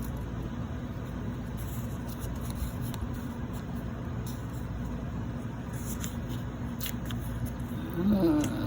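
Steady low rumble with a few faint crackles, then a short hummed 'mm' from a person near the end.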